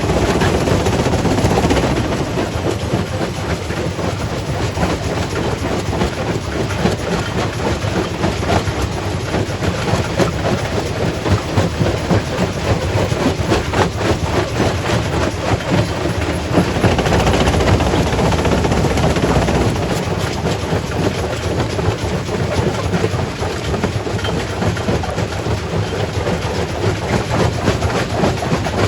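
Quarry primary rock crusher running, with a steady heavy drone and a dense, continuous clatter of rocks knocking and cracking as they are broken. It swells a little louder at the very start and again just past the middle.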